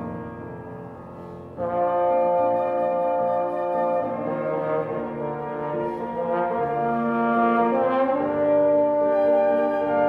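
Slow instrumental music of long held chords. A fuller, louder passage comes in about a second and a half in, and the chord shifts near the end.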